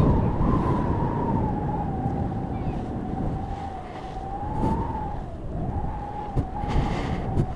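Paragliding variometer sounding a continuous sink tone that wavers and slowly drops in pitch: the glider is descending toward landing. Wind rushes on the microphone underneath.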